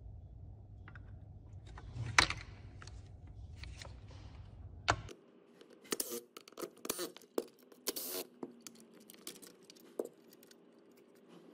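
Light clicks, taps and scrapes of plastic and metal parts being handled as screws are backed out of a Makita DHS680 circular saw's plastic motor housing and the housing is lifted off. A cluster of sharp clicks and scrapes comes about six to eight seconds in.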